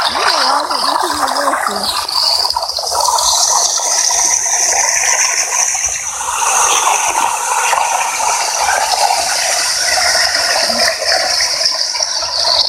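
Water rushing and churning in a whirlpool, a steady loud gushing.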